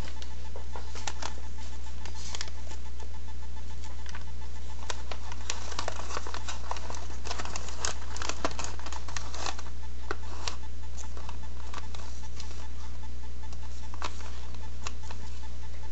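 Folded paper rustling and crinkling with light taps and clicks as a paper lid is fitted onto an origami box and its ribbon bow is handled, busiest in the middle. A steady low hum runs beneath it.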